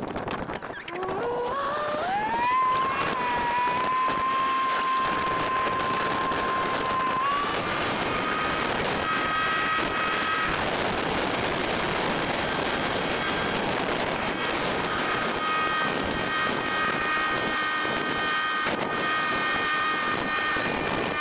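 Boat motor throttling up: its whine climbs in pitch over a couple of seconds, then holds steady at cruising speed, stepping up a little about seven seconds in, over a steady rush of noise.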